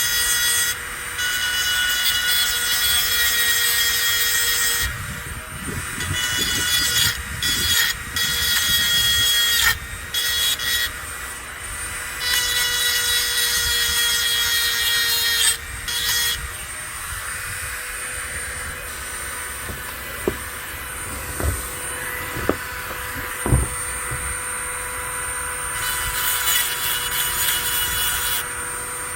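A two-speed Dremel rotary tool runs with a steady whine while its sharpening stone grinds the steel teeth of a hedge trimmer blade. The grinding comes in passes that start and stop, with a few sharp clicks in the quieter stretch after the middle.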